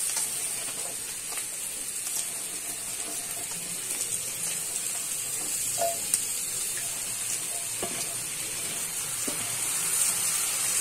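Freshly added potato sticks frying in hot oil in a pan, a steady sizzle with a few faint scattered pops and clicks.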